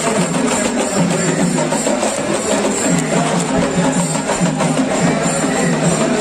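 Festival music with fast, busy drumming over a continuous low melody.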